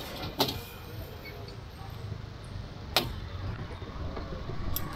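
Street background noise: a steady low traffic rumble with faint voices, broken by two sharp clicks, about half a second in and again near three seconds.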